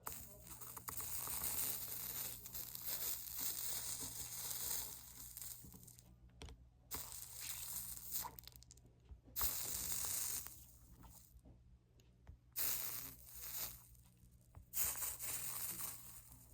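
Flux sizzling under a soldering iron as 60/40 solder is melted along copper-foiled glass seams, in a long stretch of about six seconds and then four shorter bursts with brief pauses between.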